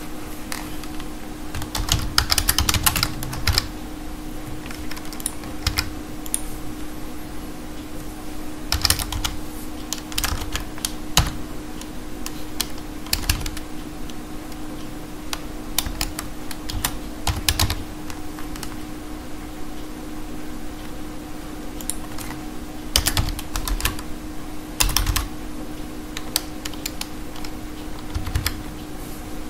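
Typing on a computer keyboard: short bursts of keystrokes with pauses between them, over a steady low hum.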